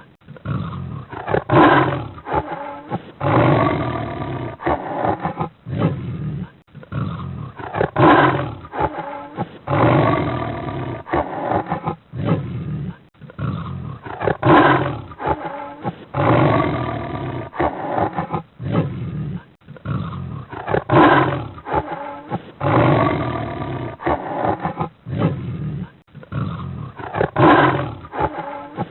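A big cat growling and roaring in repeated bouts. The same sequence of calls comes round about every six and a half seconds, as a looped recording.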